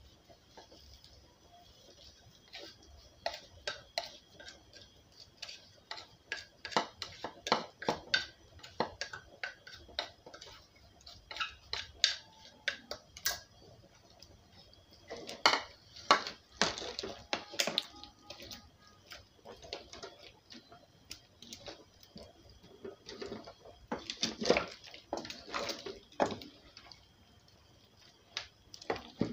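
Metal spoon scraping and tapping ground crayfish off a ceramic plate and a spatula stirring thick soup in an aluminium pot. Irregular clinks, knocks and scrapes come in clusters.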